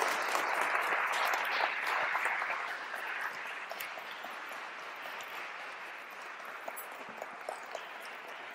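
Audience applauding, loudest in the first few seconds and then tapering to lighter clapping.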